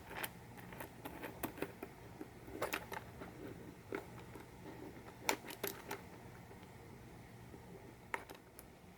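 Scattered light clicks and taps of small parts being handled and fitted on a welding helmet, as a washer and the shade-adjustment knob go onto the replacement lens assembly. The clicks come in clusters through the first six seconds, with one more near the end.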